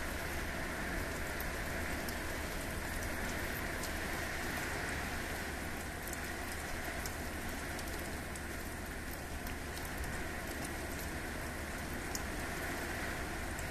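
Heavy rain falling steadily, an even dense hiss, with scattered sharp ticks of drops striking close by.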